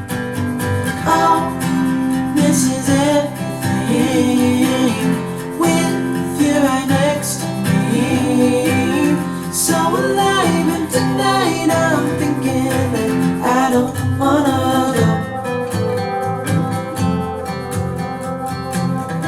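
Song with strummed acoustic guitar, a gliding melodic lead and steady bass, played back through a pair of KEF Model 103.2 two-way loudspeakers (8-inch bass cone and dome tweeter) as a listening test.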